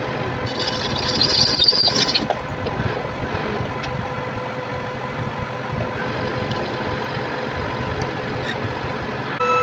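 Metal lathe running steadily with a steady whine, and a brief high-pitched hiss about half a second in that lasts under two seconds.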